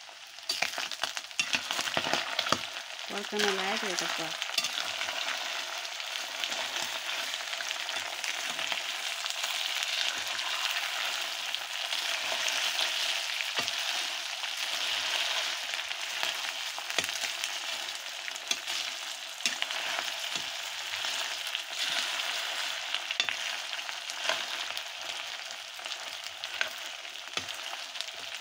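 Buffalo meat and tomato pieces sizzling steadily in a metal karahi, with a metal ladle stirring and scraping against the pan in small clicks.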